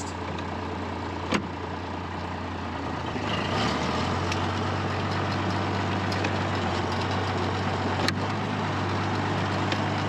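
Farm tractor engine running as the tractor is driven slowly in low range. The engine note gets louder and rises slightly about three and a half seconds in, as the tractor's torque amplifier is tested. There is a sharp click just after a second in and another about eight seconds in.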